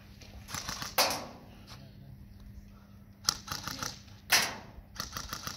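Airsoft guns firing short bursts of rapid clacks, several bursts in a few seconds, with two louder sharp cracks, about a second in and about four seconds in.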